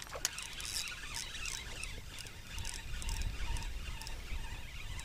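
Wind rumbling on the microphone, with small irregular splashes and ticks of water lapping against a kayak's hull.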